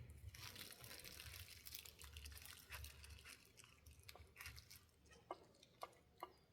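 Near silence: faint room tone, with a few soft, sharp clicks in the last couple of seconds from small parts being handled.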